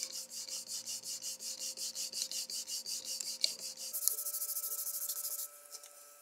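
A cloth is rubbed by hand quickly back and forth over a turned wooden mallet blank, working colourless shoe cream into the wood. It makes a rapid, even swishing of about five strokes a second, which stops about five and a half seconds in.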